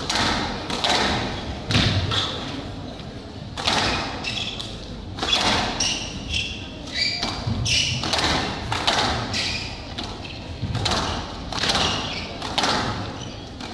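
Squash rally: the ball cracking off rackets and thudding against the walls of a glass-backed court, a quick irregular series of hits, with short squeaks of players' shoes on the wooden floor in the middle of the rally.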